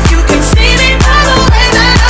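Dance-pop music with a steady thumping beat, about two beats a second.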